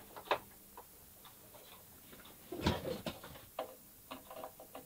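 Scattered quiet clicks and taps of small cross-head screws being unscrewed and handled at the plastic case of a Brailab home computer, with one louder knock about halfway through.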